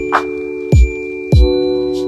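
Background music: a held chord with a high ringing note, and two deep falling bass thumps, about three-quarters of a second and just under a second and a half in.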